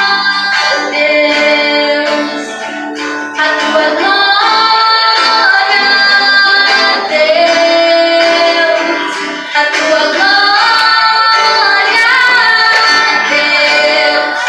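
Music: a high voice singing long held and gliding notes over instrumental accompaniment.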